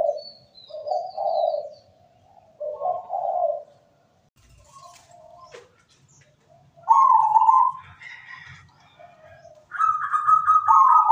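Caged zebra dove (perkutut) cooing: several low rolling coo phrases in quick succession over the first few seconds, then after a pause two louder, higher-pitched calls, one near the middle and one running to the end.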